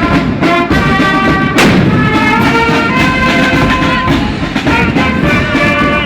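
A brass band playing, with held notes from several instruments, and a single loud bang about one and a half seconds in.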